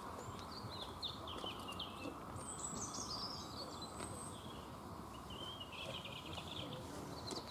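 A small songbird singing short, high, twittering phrases several times, over steady outdoor background noise.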